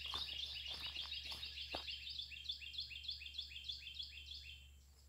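A bird singing a long, fast series of repeated down-slurred chirps that slows and stops about four and a half seconds in. Footsteps on a leaf-strewn dirt trail are heard through the first two seconds.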